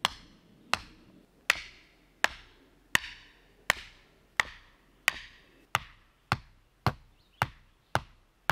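Small sledgehammer driving wooden stakes cut from decking board into hard ground: a steady series of sharp blows, about three every two seconds, coming slightly faster near the end. The stakes are going in stubbornly.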